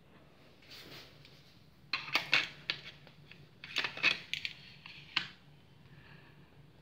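Handling noise of hard plastic things being moved and set down: a cluster of sharp clicks and rattles about two seconds in, another about four seconds in, and a single sharp click about five seconds in.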